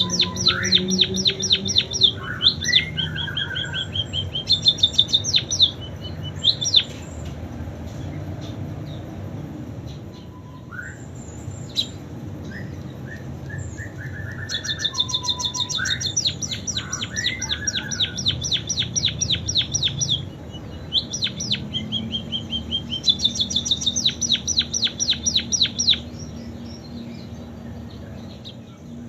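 A pipit singing a song filled with canary phrases: fast trills and rolls of rapidly repeated high notes in bursts of a few seconds, with scattered single notes and a quieter stretch in between.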